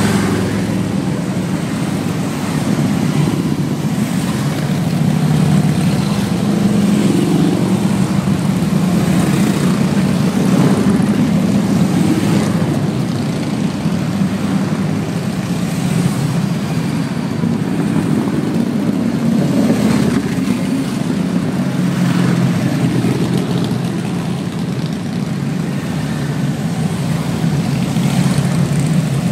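A steady procession of large touring motorcycles and a three-wheeled motorcycle trike riding past one after another at low street speed, their engines running in a continuous low drone that swells and eases as each bike goes by.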